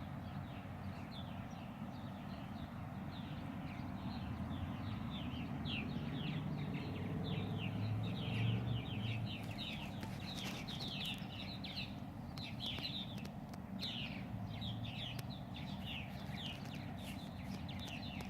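Many birds chirping together, a dense, overlapping run of short falling calls, over a steady low rumble.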